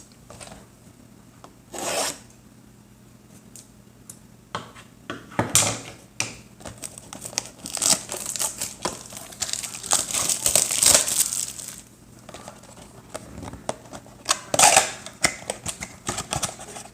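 A cardboard trading-card retail box being torn open and its foil-wrapped card packs handled: tearing, crinkling and rustling in irregular bursts, busiest in the middle.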